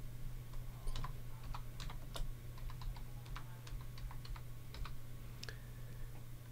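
Typing on a computer keyboard: a run of light, irregular key clicks, with a low steady hum underneath.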